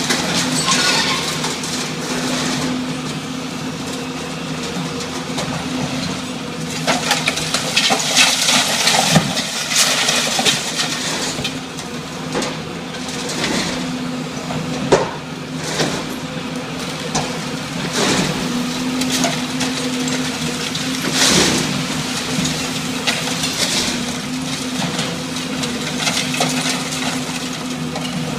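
Building demolition: a heavy machine's engine runs steadily while the structure cracks, crunches and crashes at irregular moments.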